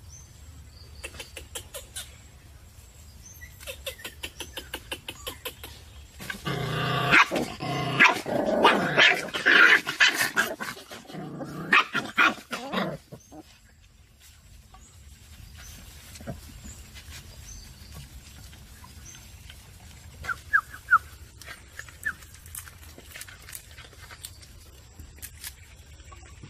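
Puppies whimpering and yelping, with a loud run of crying in the middle and a few short, high yips later on. Light clicking and tapping comes before the crying.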